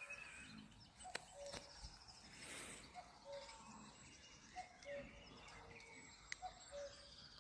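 Near silence with faint birdsong. One bird repeats a low two-note call three times, the first note higher than the second.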